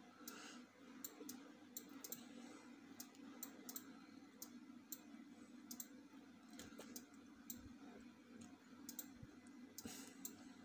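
Faint computer mouse clicks, roughly two a second and unevenly spaced, over a low steady hum.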